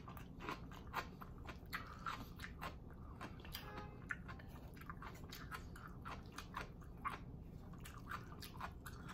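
A person chewing crunchy kimchi close to the microphone, with a steady run of crisp crunches about two to three a second.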